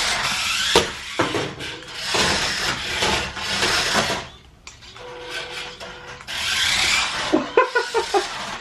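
Small electric RC drift car's hard plastic drift wheels sliding and skidding across a hard floor in repeated rasping bursts about a second long as it is steered around, with a couple of sharp knocks about a second in.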